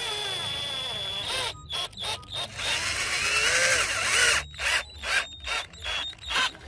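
Handheld power drill driving Phillips screws through steel corner brackets into a wooden frame, its motor whine rising and falling with the load in two longer runs, then a quick series of short bursts in the last two seconds.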